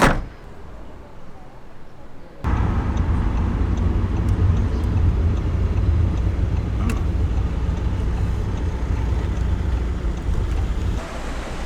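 A sharp thump at the very start. Then, after a couple of quieter seconds, a car's steady low road and engine rumble while driving, heard from inside the cabin.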